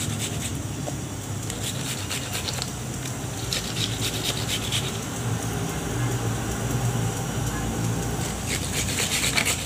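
Aloe vera leaf rubbed back and forth on a small metal hand grater: soft rasping scrapes that come in two spells, about three and a half seconds in and again near the end, over a steady low hum.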